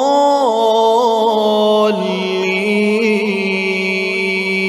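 A reciter's voice in melodic Quranic chant, drawing out a long vowel with ornamented pitch turns, then settling about two seconds in onto a lower, steady held note.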